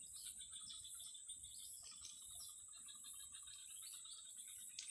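Faint outdoor ambience: a steady high-pitched insect drone, with scattered bird chirps over it.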